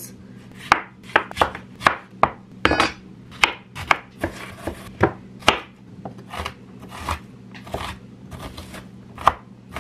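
Kitchen knife chopping a yellow onion on a wooden cutting board: about twenty uneven knocks of the blade striking the board, roughly two a second.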